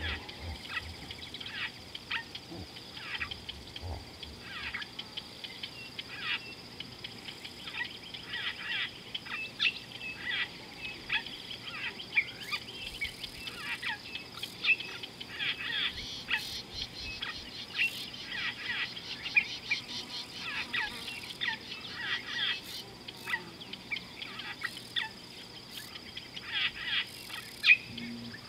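Many short bird chirps and calls, coming thick and fast, over a steady high-pitched insect drone.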